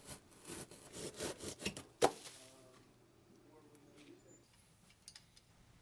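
Saw cutting the traced speaker hole out of the panel material, a quick run of strokes about three a second, ending in one sharp knock about two seconds in.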